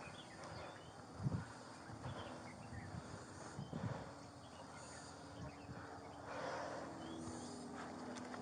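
Faint outdoor ambience: a few soft thuds and a brief rustle, with faint bird chirps.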